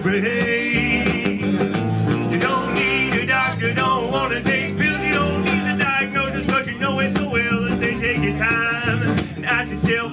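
Live acoustic song: an acoustic guitar and an upright double bass play together under a man's voice carrying the melody.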